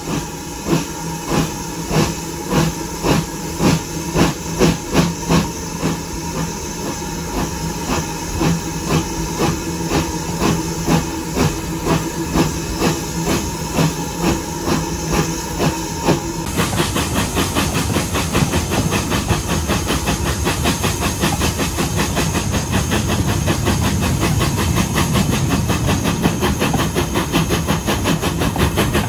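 BR Standard Class 2MT 2-6-0 steam locomotive No. 78019 pulling away with steam hissing. Its exhaust beats start at about two a second and quicken as it gathers speed, running together in the second half.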